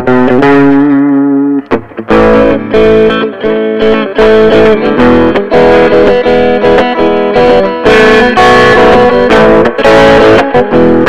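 Electric guitar played through a Mesa Boogie Recto-Verb 25 tube combo amp (EL84 power tubes): a held chord, a short break about two seconds in, then quick picked notes and chords with a hard, punchy pick attack. The single notes sound much quieter than the chord notes.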